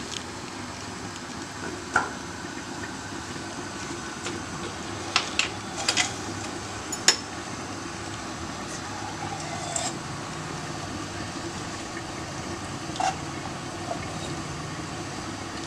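Kitchen cooking sounds: a pot bubbling steadily on the stove, with about ten scattered clinks and knocks of a metal utensil against the pot, the sharpest about seven seconds in.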